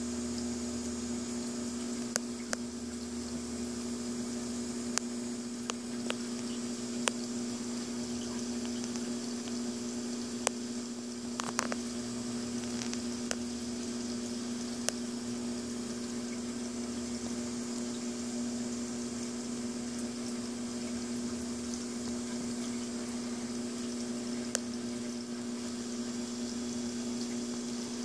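Reef aquarium pumps running with water flowing: a steady hum with a hiss, and a few short clicks scattered through it.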